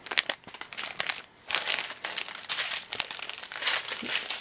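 Clear plastic packaging crinkling as it is handled, in irregular bursts with a brief pause a little over a second in.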